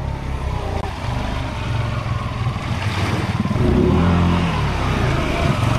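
Honda Rancher 420 ATV's single-cylinder engine running as it wades through swamp water, getting louder as it comes close about three and a half seconds in, with water churning around its wheels.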